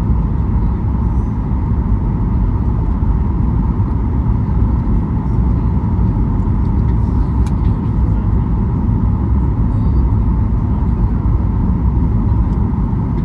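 Steady cabin noise of a Boeing 737 MAX 8 on approach: a low rush of airflow and its CFM LEAP-1B engines, with a steady whine held on one note.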